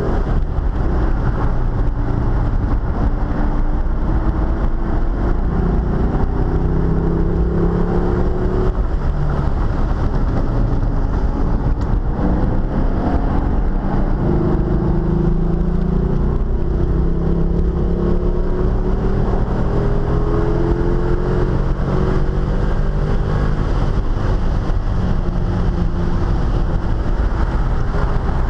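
Corvette V8 with an aftermarket camshaft, heard from inside the cabin at track speed: the engine pitch climbs in long pulls and falls back between them, several times over, under steady wind and road noise.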